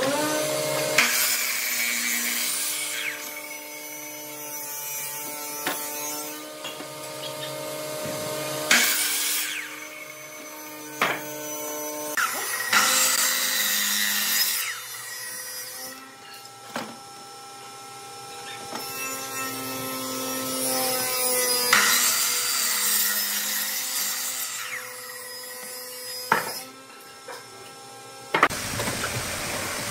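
Ryobi sliding miter saw running with a steady motor whine. Its blade cuts through a thick log slab in several loud passes of a few seconds each, and the whine shifts in pitch between cuts.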